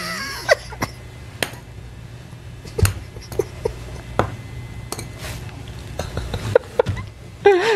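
Stifled laughter from two people: a few short giggles between scattered light clicks and knocks, over a low steady hum.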